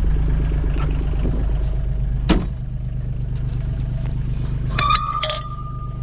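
Utility vehicle's diesel engine idling steadily, likely a John Deere Gator XUV 855D. A single sharp click comes about two seconds in. Near the end, metal clanks and a brief ringing tone come from a galvanised steel field gate being handled and swung open.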